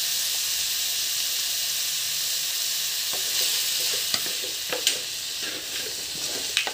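Diced snake gourd frying in a hot pan with a steady sizzle, stirred with a wooden spatula. The spatula knocks and scrapes against the pan a few times in the second half.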